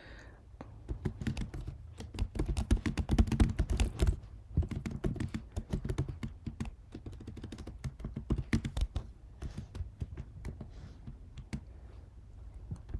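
Typing on a computer keyboard: quick runs of keystroke clicks about a second in and again after a short pause, thinning out to scattered keystrokes in the last few seconds.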